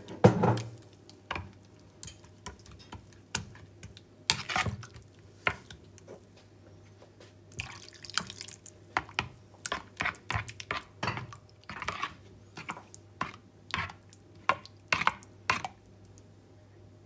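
A metal spoon stirring wet grated cucumber in a plastic bowl: repeated clinks and wet slurps. About eight seconds in, liquid is poured from a glass into the bowl with a brief splashing hiss.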